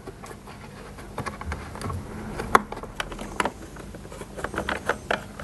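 Torx screwdriver undoing the holding screws behind the wheel of a Dyson DC05's plastic body, heard as irregular small clicks and ticks, with one sharper click about two and a half seconds in.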